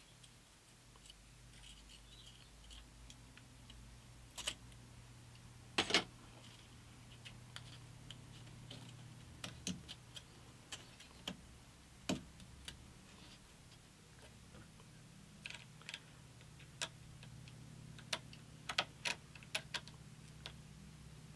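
Scattered small clicks and taps of hands working the end of a paper-backed sanding belt under a clamp on a drum sander's drum, with a few sharper knocks over a faint low hum.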